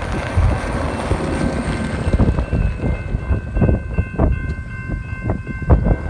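Strong wind buffeting the microphone in uneven gusts, with steady high tones held across the whole stretch from the approaching BNSF freight train's horn.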